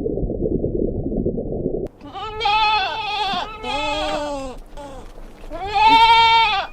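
A low rumbling noise cuts off about two seconds in, then a goat or sheep bleats three times in long, wavering calls, the last one the loudest.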